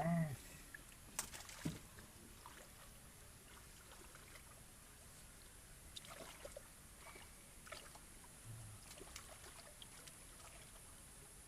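Faint sloshing and trickling of muddy pond water as hands grope through it, with scattered small splashes. A brief voice sound comes at the very start, and two sharp clicks follow about a second in.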